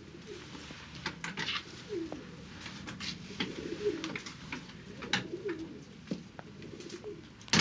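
Pigeons cooing, a run of low bending calls repeating every second or so, with scattered small clicks and rustles. A sharp knock near the end is the loudest sound.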